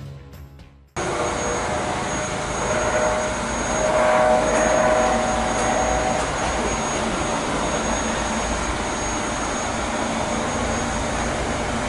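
Brief music fades out, then about a second in the sound of a Eurocopter EC135 twin-turbine helicopter in flight on its landing approach takes over: a loud, steady rush of rotor and turbine noise. A whine stands out and the level peaks around four to six seconds in.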